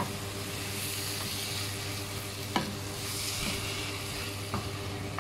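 Onion, tomato and spice mix sizzling in a wok with a cup of water just added, while a wooden spatula stirs it and knocks against the pan a few times.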